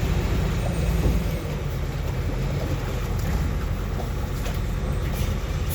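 Truck engine running steadily in a low rumble, with wind on the microphone.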